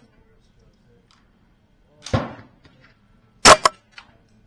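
A .22 LR Ruger 10/22 semi-automatic rifle fires once, a sharp crack with a short echo, about three and a half seconds in. About two seconds in there is a quieter, duller bang.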